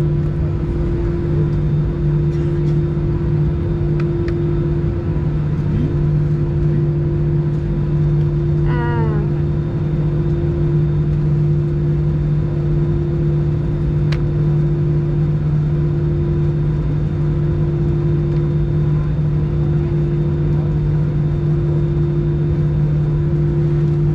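Cabin drone of an Airbus A320 on the ground, its engines at idle: an even hum carrying a steady low tone.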